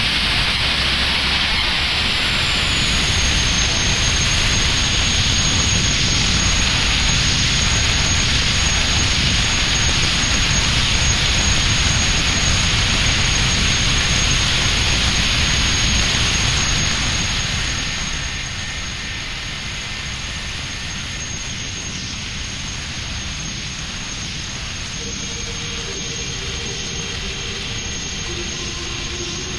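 Abrasive blasting of a narrow boat's steel hull: the blast nozzle hisses loudly and steadily, with a thin high whistle over it. About seventeen seconds in the hiss eases to a quieter steady rush.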